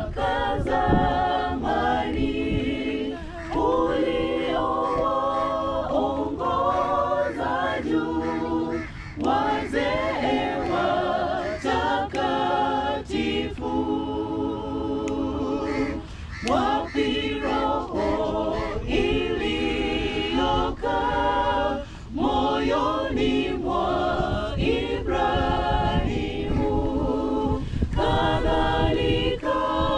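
A mixed choir of men and women singing a cappella, in several voice parts with no instruments, in short sung phrases that carry on throughout.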